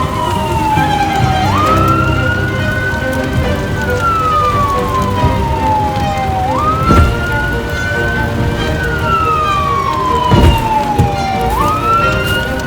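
Police siren wailing in slow cycles of about five seconds, each jumping up quickly, holding high, then sliding slowly down, over dramatic background music, with a couple of sharp bangs in the second half.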